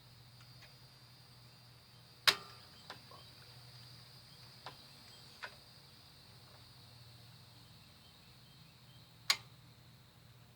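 Sharp metal clicks from locking pliers clamped on a seized, sheared-off screw stud: two loud snaps with a short ring, about two seconds in and near the end, and a few lighter clicks between. The stud does not turn.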